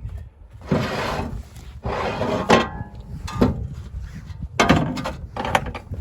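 Loading ramps being pulled out of the back of a flatbed trailer: two long scrapes as the ramps slide out of their stowed slots, then several short knocks and clanks as they are handled and set down.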